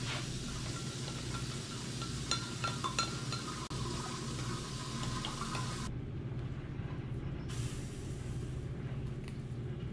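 A metal spoon stirring liquid in a glass measuring jug: a soft swishing with small light clinks against the glass, which stops about six seconds in. A steady low hum runs underneath.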